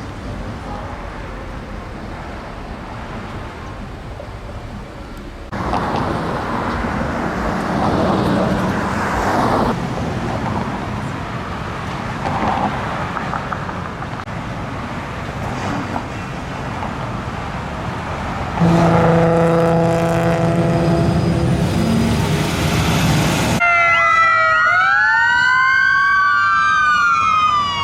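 Street traffic running, then a steady horn-like tone for about five seconds, and in the last few seconds an emergency vehicle's siren sweeping up and down in pitch.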